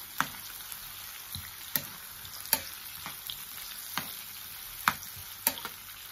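Chopped onions and garlic sizzling in hot oil in a nonstick frying pan, with a handful of sharp clicks as the spoon knocks and scrapes against the pan while stirring.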